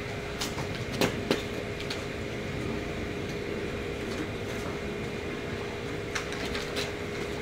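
Steady background noise with a faint constant hum and a few soft clicks.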